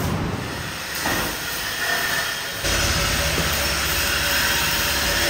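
MIG welder laying a bead on steel exhaust tubing: a steady, noisy hiss with a low buzz that starts abruptly about two and a half seconds in, over general shop noise before it.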